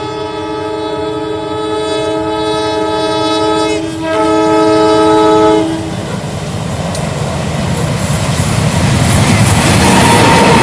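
Diesel locomotive CC 204 sounding its multi-tone air horn, a long chord with a short break about four seconds in, stopping about six seconds in. The locomotive's engine and wheels then grow louder as it passes close by.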